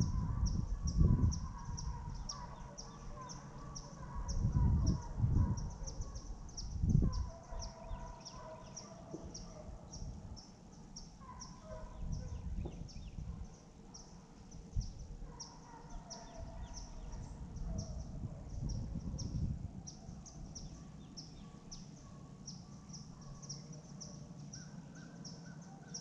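Faint, distant animal calls from the woods, each a second or two long and dropping a little in pitch, heard over a faint high ticking about two or three times a second. A few low rumbles come in near the start and again a few seconds later.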